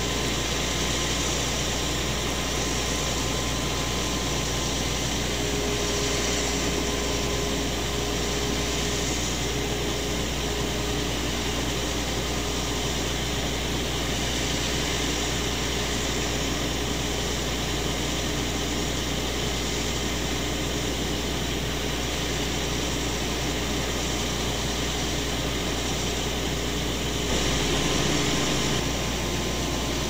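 Steady drone of a Claas combine harvester's engine and machinery running alongside a John Deere tractor as the combine unloads grain through its auger into the trailer. The drone grows briefly a little louder near the end.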